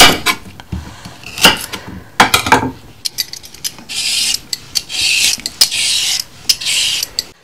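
A knife knocks a few times on a wooden chopping board. From about four seconds in, a swivel vegetable peeler scrapes down a carrot in several quick strokes, with small clicks between them.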